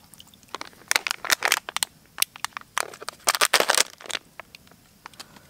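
Paper towel and plastic crinkling and crackling as they are handled, in two bunches of sharp crackles about a second in and about three seconds in.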